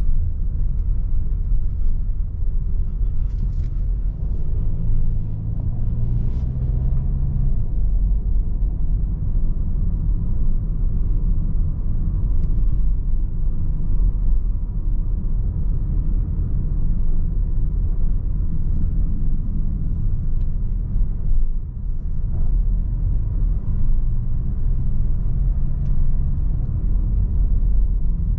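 In-cabin sound of a 2019 Audi Q3's 2.0-litre four-cylinder diesel engine and tyres while driving, a steady low rumble. A low engine drone comes up about five seconds in and again near the end.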